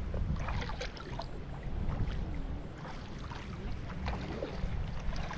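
Shallow, muddy pond water sloshing and splashing as someone wades and gropes through it by hand, with many small irregular splashes.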